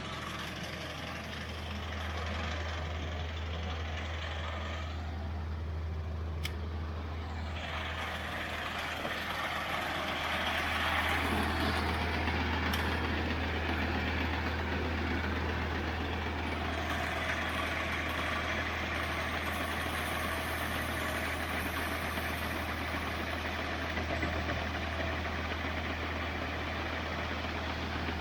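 A John Deere 4020 tractor engine running steadily, driving a feed grinder that is grinding corn. The rushing grinding noise grows louder about eight seconds in and holds.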